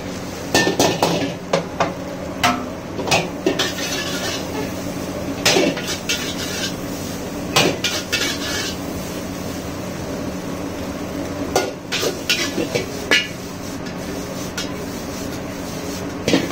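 Metal spatulas clanging and scraping against a black steel wok as noodles are stir-fried and tossed, in irregular knocks, sometimes several in quick succession. A steady hum runs underneath.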